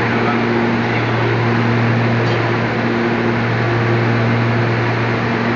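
Stevia leaf dryer running: a loud, steady mechanical drone with a low hum and no change in pitch.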